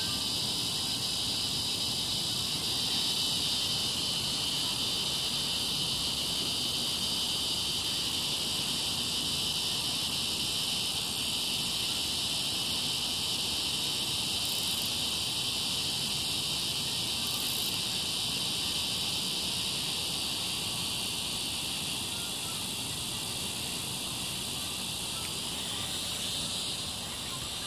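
A dense, steady chorus of insects, a high-pitched trill that never breaks, easing slightly in level over the last few seconds.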